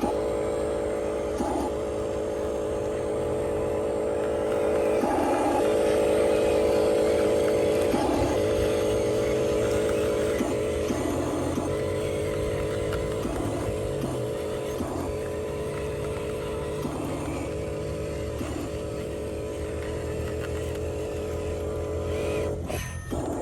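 Electric motors and gearboxes of radio-controlled construction toys whirring steadily, with short louder surges every second or two and a brief drop-out near the end.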